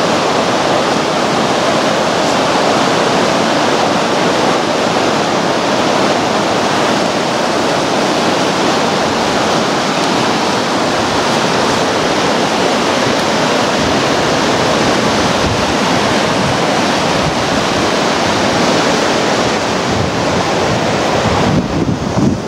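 Rushing water of a river in spring flood, a steady loud noise that holds without a break.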